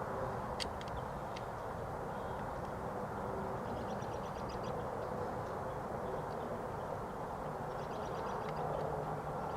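Outdoor background noise with a short, high, rapid trill, likely from a small bird, heard twice a few seconds apart, plus a couple of faint clicks in the first second or so. No gunshot is heard.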